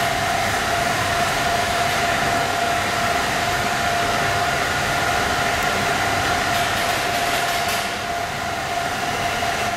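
Factory machinery running steadily: a constant whirring noise with a steady high-pitched whine over it.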